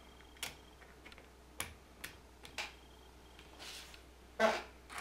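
Small clicks of metal shims and bearing wheels being slid onto bolts and set against a carriage plate, with a louder clack about four and a half seconds in.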